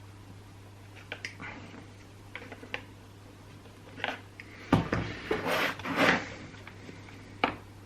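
Handling noises of a small rubber vacuum hose being worked onto a fitting in a chainsaw's plastic handle housing: scattered light clicks and rubs, with a louder spell of rubbing and knocks about five to six seconds in, over a steady low hum.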